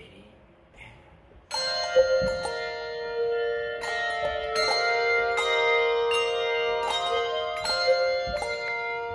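Handbell choir ringing handbells, coming in together about a second and a half in. Chords are struck every half second or so and left to ring on, overlapping.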